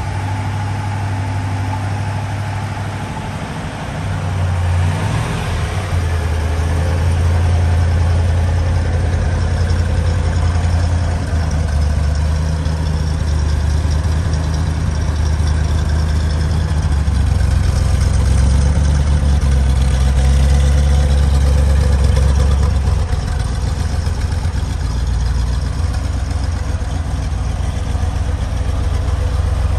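1963 Chevrolet Corvette fuel-injected 327 V8 idling just after a cold start, a steady low rumble. It grows louder about four seconds in, then holds steady.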